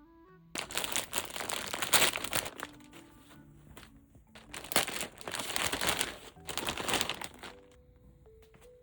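Something crinkly being handled, crumpling and rustling, in two long spells: from about half a second to two and a half seconds in, and again from about four and a half to seven and a half seconds in. Soft background music with mallet-like notes plays underneath.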